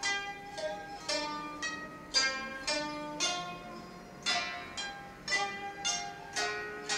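Japanese koto music: single plucked notes that ring and fade, about two a second, over a few lower sustained notes.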